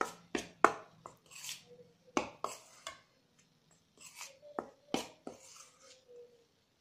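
Metal spoon stirring dry flour in a glass bowl: irregular clinks and scrapes of the spoon against the glass, with a short pause about three seconds in.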